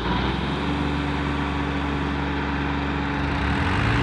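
Diesel engines of farm tractors running steadily at high revs, a dense low drone with a constant pitch.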